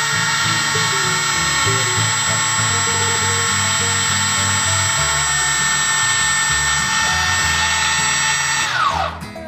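A model-aircraft brushless motor spinning at a steady speed with a utility-knife blade held against its shaft, giving a steady high-pitched whine and buzz with no ticking. This is the blade test for a bent, eccentric shaft. Near the end the motor spins down and the pitch falls away.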